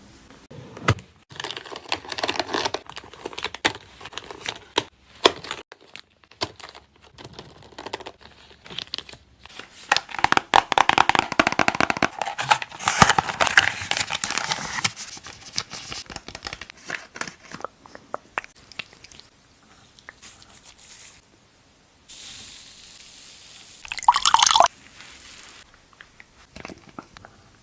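Close-miked sounds of makeup products being handled: a stream of clicks, taps and crinkling, densest and loudest in the middle, with one short loud noisy burst near the end.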